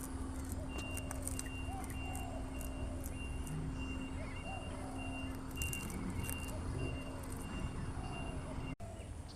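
A vehicle's reversing alarm beeping evenly, a little under two beeps a second, over a steady low engine hum, cutting off abruptly near the end.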